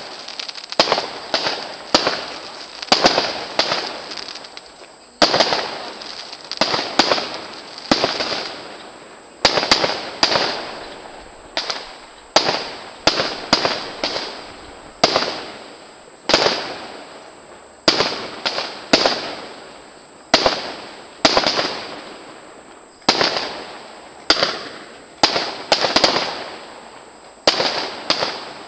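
Aerial fireworks display: shells bursting one after another in sharp bangs, about one or two a second, each trailing off in a fading tail.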